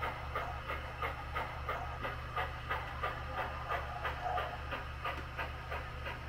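HO scale model freight train rolling past, a steady low hum with a regular clicking about three times a second as the cars pass over the track.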